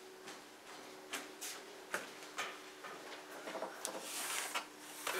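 Scattered light clicks, taps and rubbing of small objects being handled and set down, over a faint steady hum. The taps grow more frequent and busier toward the end.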